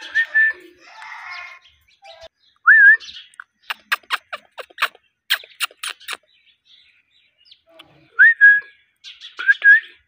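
Indian ringneck parrot giving several short whistles, each rising and then holding. About four seconds in comes a quick run of sharp clicks.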